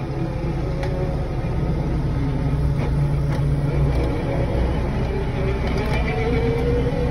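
Excavator's diesel engine running steadily under load while its hydraulic auger attachment bores into the soil, with a whine that wavers in pitch. A few light scrapes of hand tools in the dirt.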